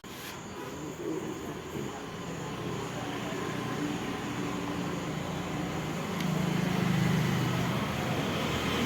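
A motor running steadily, growing louder for a second or so about six seconds in.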